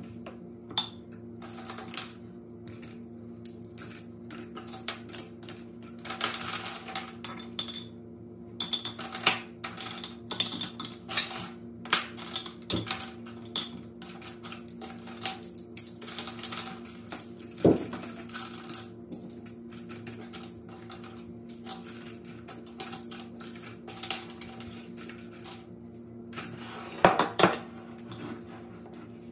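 Makeup brushes clinking and tapping against glass jars as they are set one by one into soapy water to soak: many light clicks, with louder knocks about two thirds of the way in and near the end. A steady low hum runs underneath.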